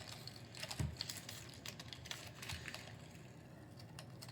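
Protective paper being picked and peeled off an acrylic panel with fingernails: scattered light scratches and crackling clicks as the paper tears in places, with a soft thump about a second in.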